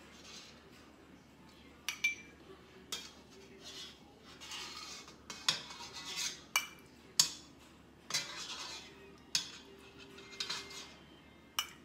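Metal spoon clinking and scraping against a stainless steel pot while skimming congealed fat off chilled chicken broth: irregular sharp clinks with short scrapes between them.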